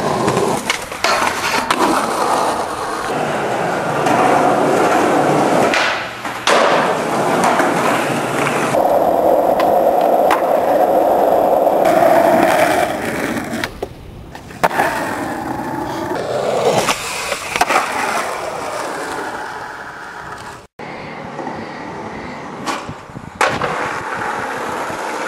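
Skateboard wheels rolling over asphalt and concrete, broken by the sharp clack of boards popping and landing. The rolling noise changes abruptly several times.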